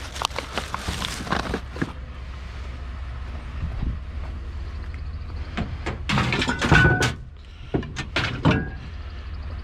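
Baseball bats being picked up and handled: a run of knocks and clatters, loudest about six to seven seconds in, with a brief metallic ring.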